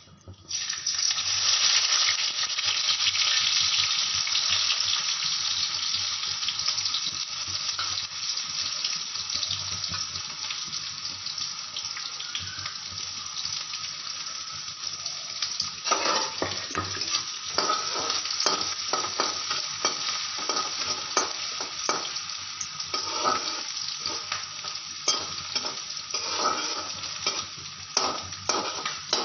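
Sliced onion and green chillies dropped into hot oil in a black iron kadai: a loud hiss that starts at once, then a steady sizzle that slowly settles. From about halfway, a spatula scrapes and stirs against the wok in irregular strokes over the sizzle.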